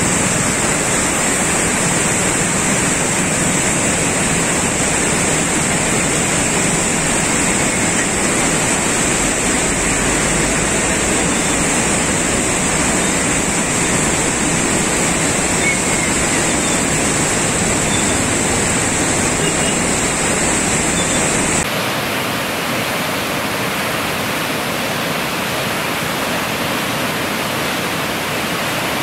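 Steady rush of a muddy river in full flood, churning water with no pauses. About three-quarters of the way through, the sound changes to a flatter hiss with less low end, and a steady high whine drops out.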